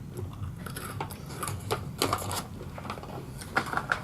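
Irregular small clicks and crackles from a snack bag of crunchy golden apple tea biscuits being handled and a biscuit being eaten, with a few sharper clicks about two seconds in and near the end.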